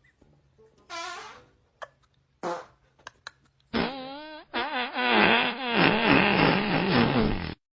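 Fart sound effects: a short wavering fart noise about a second in and a brief one at two and a half seconds, then a long, loud, wavering fart noise from about four seconds in that cuts off suddenly near the end.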